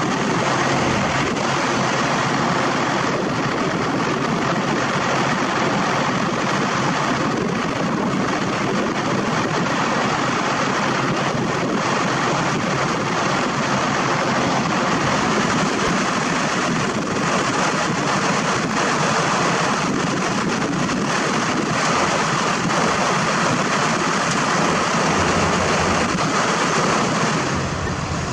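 Diesel engine of a Caterpillar 120H motor grader running under load as it drives up onto the tilted bed of a self-loader truck: a loud, steady engine noise that eases slightly near the end.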